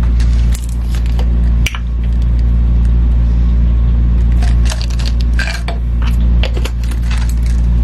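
Capsules rattling and clicking in a plastic supplement bottle as it is handled and pills are tipped out into a hand, mostly in the second half. Under it runs a loud, steady low hum.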